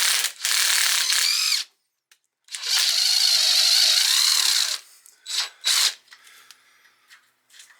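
Electric drill boring into steel with a freshly sharpened drill bit, run in bursts: a run of about a second and a half, a brief stop, a second run of about two seconds whose pitch wavers under load, then two short blips of the trigger near the end.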